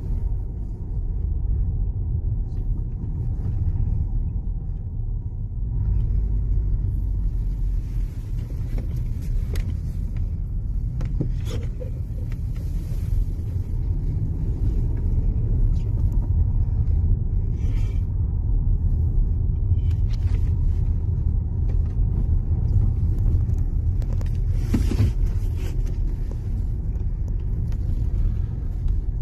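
Steady low rumble of a car's engine and tyres on the road, heard from inside the cabin, with a few brief knocks from bumps in the road.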